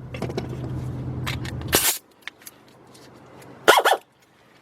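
A steady low hum with light metallic clicks of tools being handled cuts off suddenly about two seconds in. Near the end comes a single short dog bark, the loudest sound.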